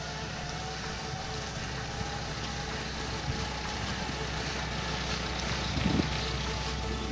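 Steady low mechanical hum, like a running engine, over a noisy background, with a single knock about six seconds in.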